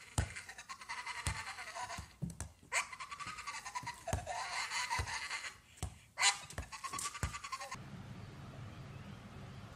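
A pit bull-type dog giving long, wavering, high-pitched cries that sound like a goat bleating, with sharp clicks between them. The cries stop about eight seconds in, leaving a low steady hum.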